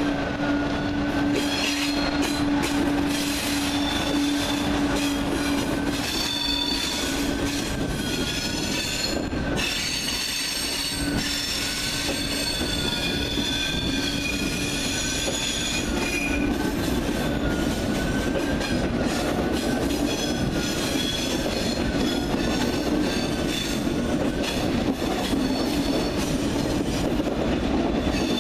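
TGV high-speed trainset rolling slowly past over the station's curved tracks and points, its wheels squealing in a wavering high tone with several higher screeching tones above a steady rumble of wheels on rail. A steady low hum is heard for the first several seconds as the front car passes.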